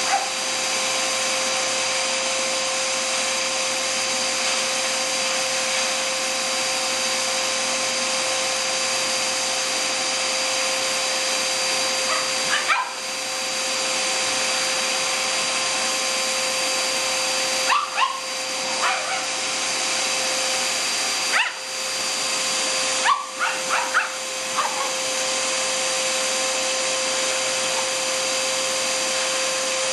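Vacuum cleaner running steadily with a motor whine over its hiss, while a Shih Tzu barks at it in short bursts, a few times in the second half.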